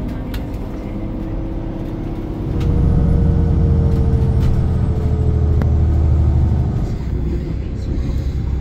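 A motor vehicle's engine running close by, its low hum swelling about two and a half seconds in and easing off near seven seconds, with a faint whine gliding slowly down.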